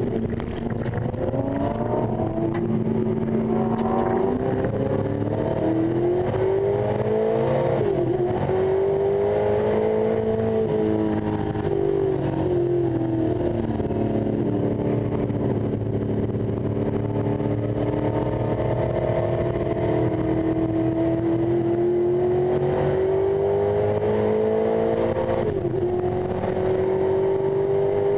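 1973 Ford XA Falcon coupe race car's engine, heard from inside the cabin, pulling hard on track. Its pitch climbs in long sweeps, drops sharply at gear changes about 8 seconds in and near the end, and sags around 12 seconds before a long steady climb.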